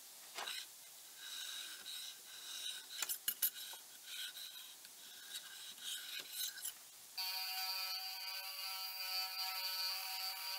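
Faint scratches and a few sharp clicks as the height-gauge scribe is drawn along the edge of a hardened 5160 steel blade coated in layout fluid. About seven seconds in, a belt grinder starts a steady whine as the blade edge is ground against the belt.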